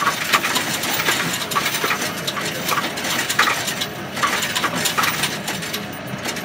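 Coins clattering through a Coinstar coin-counting kiosk as they are fed in and counted: a dense, continuous run of metallic clinks.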